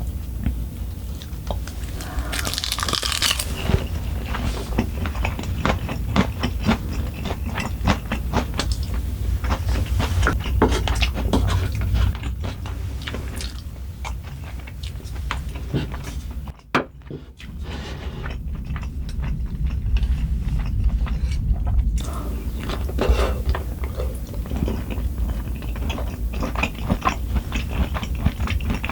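Close-miked eating sounds: a person biting and chewing food, with crunchy bites and wet mouth smacks. A crunchy burst comes a few seconds in, and a sharp click is followed by a brief drop in level a little past halfway.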